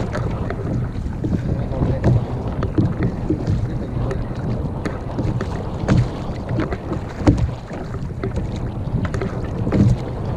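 Wind buffeting the microphone and water slapping against a sit-on-top kayak's hull, with scattered small knocks throughout.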